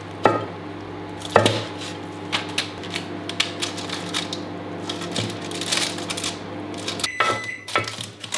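Metal spoons knocking and scraping against a ceramic bowl and baking dish as a sticky chocolate and puffed-rice mixture is scooped out and spread: two sharper knocks near the start, then a run of small clicks and scrapes. A steady low hum sits underneath.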